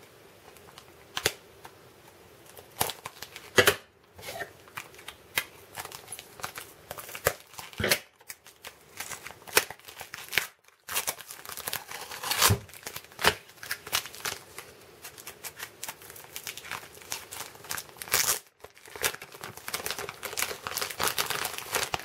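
Tape being peeled and torn off a taped-up stack of trading cards: irregular crinkling and crackling with short tearing rips, a few sharper rips standing out.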